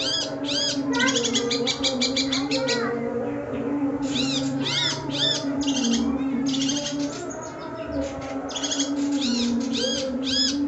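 Long-tailed shrike (cendet) singing a fast, varied song of repeated down-slurred whistled notes and rapid chattering runs, with a short pause about three seconds in, over a steady low drone.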